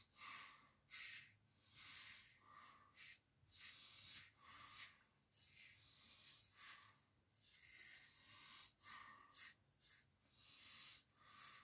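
Double-edge safety razor scraping through lathered stubble on the cheek: a series of short, faint, crisp rasps, roughly one stroke a second.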